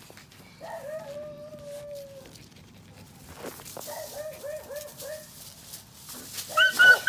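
Dogs vocalizing during rough play: a long whine about a second in, then a quick run of short whining yips, then several loud, high-pitched yaps near the end.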